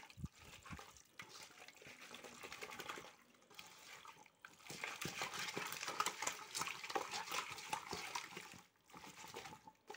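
Hand squeezing and mixing skin-on Muscovy duck pieces in a thick marinade of sour yogurt, spices and mustard oil in a metal pot, the wet mixture squelching. It grows louder about halfway through, with a couple of brief pauses.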